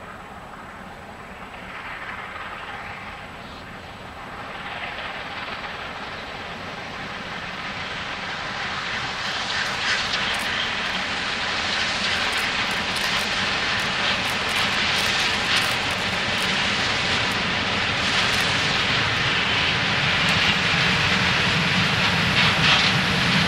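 Steam locomotive working hard at the head of a heavy freight train, its exhaust growing steadily louder as it approaches, with the low rumble of the loaded wagons rising near the end as they pass.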